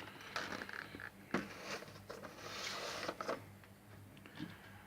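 Faint handling noise: scattered light clicks and knocks, with a longer rustle of packaging from about two seconds in to just past three seconds.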